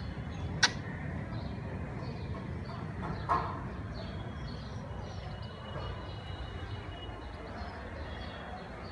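Small birds chirping faintly and intermittently over a steady low background rumble, with a sharp click under a second in and a short louder sound about three seconds in.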